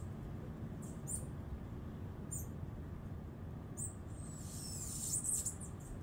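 Short high-pitched chirps from small animals, a few spread out and then a quick run of falling whistles near the end, over a steady low rumble.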